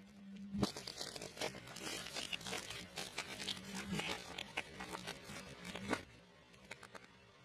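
Crunchy eating sounds: rapid crackling and crunching bites of fried food, starting about half a second in and stopping about six seconds in, over a faint steady low hum.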